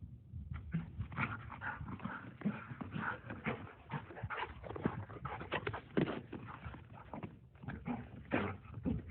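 A dog panting in quick, irregular breaths, starting about half a second in.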